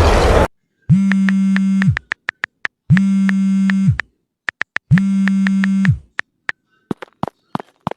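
Three electronic buzzes, each about a second long and a second apart, with short high beeps and clicks scattered between and after them. A roaring noise cuts off suddenly about half a second in.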